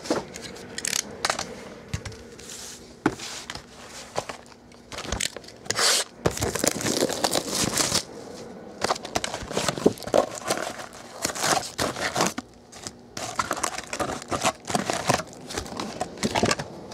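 Foil-wrapped 2012 Topps Chrome trading-card packs and their cardboard boxes being handled: irregular crinkling of the pack wrappers, with scrapes and light taps of cardboard as the box is opened and the packs are set down.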